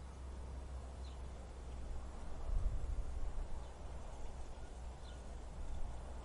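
Wind blowing steadily with a low rumble, swelling in a gust about two and a half seconds in. Two faint short high chirps sound over it.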